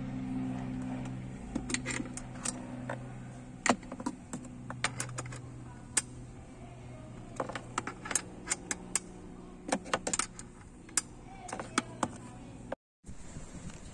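Light metallic clicks and clinks, irregular and one at a time, of a small combination wrench being fitted and turned on a body-panel bolt of a Yamaha Majesty 400 scooter. A steady low hum runs underneath, louder in the first second or two.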